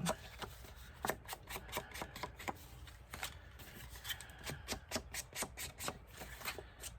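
Cardstock being handled and worked by hand: irregular light clicks, taps and rustles of paper.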